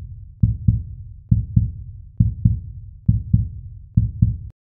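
Intro-jingle sound of deep double thumps in a heartbeat rhythm, one pair about every second, stopping suddenly near the end.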